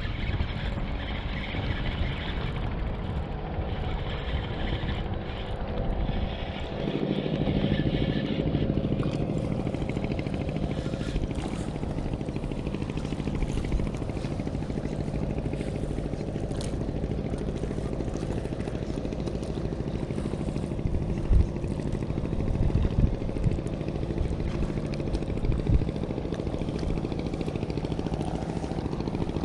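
Steady hum of a motorboat engine running on the water, its note changing and growing fuller about seven seconds in. A few dull thumps come in the second half.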